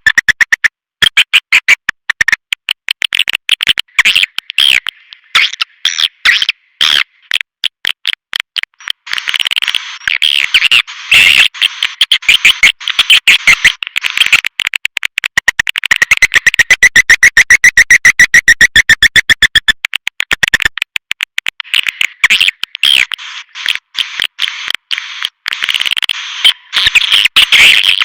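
Swiftlet lure call: a recording of swiftlets twittering, a fast chatter of sharp, high clicking chirps in dense trains with brief breaks.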